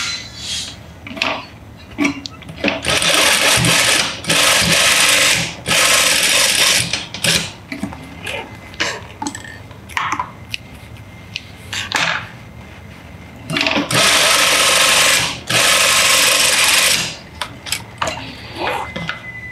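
Industrial sewing machine stitching in five short runs of about a second each, three close together and then, after a pause of several seconds, two more, sewing a cross of seams through a padded potholder. In the pause there are small clicks and rustles of fabric and a snip of scissors on the thread.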